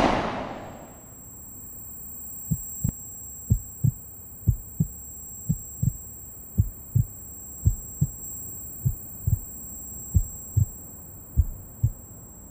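Heartbeat sound effect: paired low thumps, lub-dub, about once a second, over a thin steady high-pitched ringing tone. It opens on the fading tail of a loud bang.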